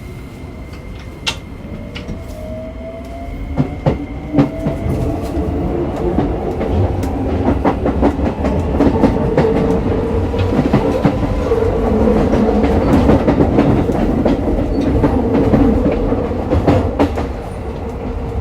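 Keikyu New 1000 series train with Toyo hybrid SiC VVVF inverter, heard from inside a motor car: the inverter and traction-motor whine rises slowly in pitch for the first few seconds, then holds a steady tone, while the running noise grows louder and the wheels click over rail joints as the train gathers speed.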